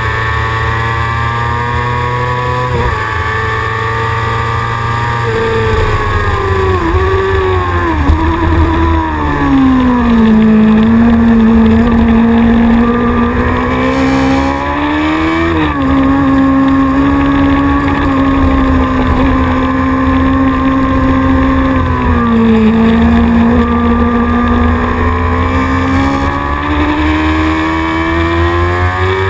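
Racing motorcycle engine heard from an onboard camera at speed. Its note falls in steps about six to ten seconds in as the rider brakes and shifts down, holds low through the corner, dips again a little past the middle, then climbs steadily near the end under acceleration.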